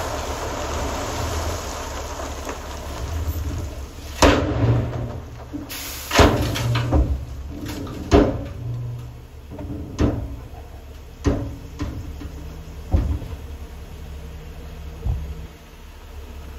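End-dump trailer unloading crushed stone: the last gravel slides off the box over the steady running of the truck's diesel engine. From about four seconds in come about eight loud metallic bangs, a second or two apart, from the aluminium dump body as the raised box comes down.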